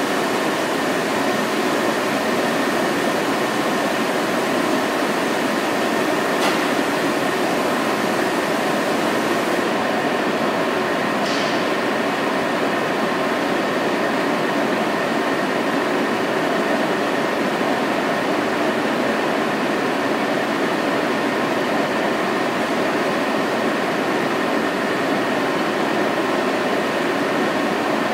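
Powder coating booth machinery running with a steady, even noise and a few faint steady tones. A short hiss comes about eleven seconds in.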